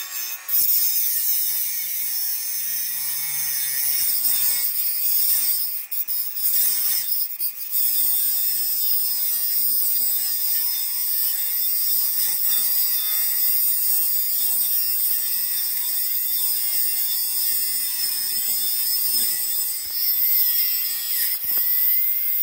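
Handheld rotary tool with a cut-off wheel cutting through a stainless steel butter knife: a steady high-pitched motor whine with a grinding hiss, its pitch wavering as the wheel bites into the metal.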